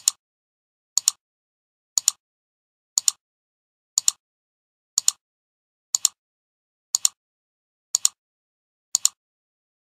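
A sharp double click once every second, about ten times: a ticking sound effect marking each step of an on-screen selection moving down a list.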